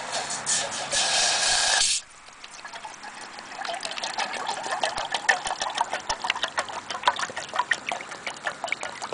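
Water poured from a plastic bottle into a stainless steel kettle. It starts as a loud, steady rushing stream that cuts off sharply about two seconds in, then goes on as an irregular splashing, spattering trickle into the water in the pot.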